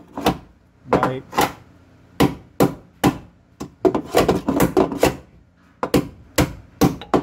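Repeated sharp knocks, about a dozen in uneven clusters: an existing fastener in the truck's body being struck left and right to work it free of its hole.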